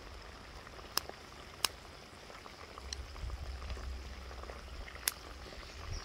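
Oil sizzling and bubbling in a cast-iron Dutch oven over a campfire as battered fish and chips deep-fry, with three sharp pops.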